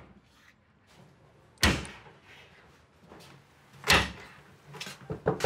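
Domino tiles slapped down on a wooden table: two loud, sharp clacks, about a second and a half in and again near four seconds, then a few lighter knocks near the end.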